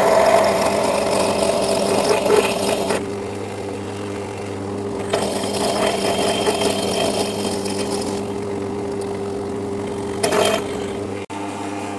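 Myford lathe running with a drill in the tailstock chuck boring into a metal coupler. The motor and headstock hum stays steady, while the cutting noise of the drill rises in two long stretches and one short burst near the end.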